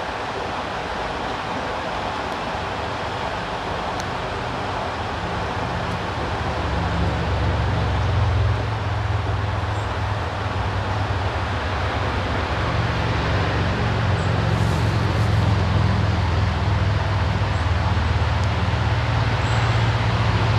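Steady rush of water flowing below a dam. A low rumble joins it about six seconds in and stays.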